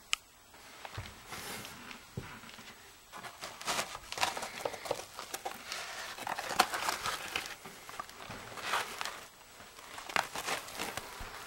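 Old carpet being pulled up from the edge of the floor, its woven mesh backing scraping and crackling in irregular bursts, then fingers rubbing over the rough backing.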